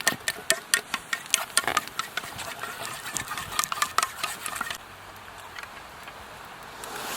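A utensil clicking rapidly against a cooking pot as food is stirred, about four clicks a second, stopping about five seconds in and leaving a steady faint hiss.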